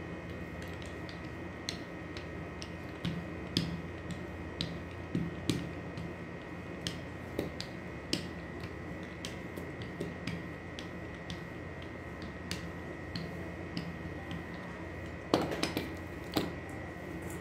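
Small hand dough roller worked back and forth over soft bread dough on a vinyl tablecloth, its roller and handle giving irregular light clicks and ticks. Near the end comes a louder cluster of knocks as the roller is set down.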